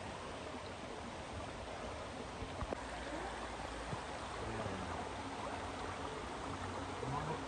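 Steady rush of running water from a waterfall stream, with a couple of faint knocks a few seconds in.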